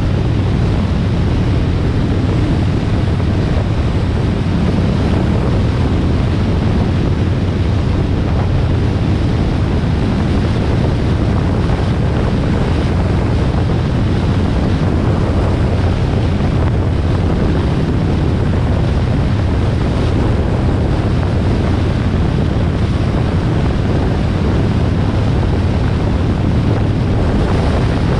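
Wind rushing over the microphone at expressway speed, with the Harley-Davidson Sportster XL1200R's air-cooled V-twin engine running steadily underneath at an even pace.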